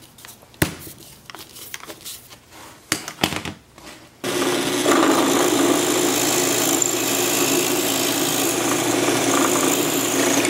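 A sharp click and a few light taps and scrapes as a hand punch marks the hole centre on a wood block. About four seconds in, a drill press starts suddenly and runs steadily with a steady hum, its bit boring a hole into the hardwood block.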